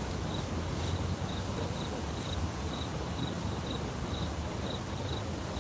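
A cricket chirping at an even pace, about two short high chirps a second, over a low steady rumble.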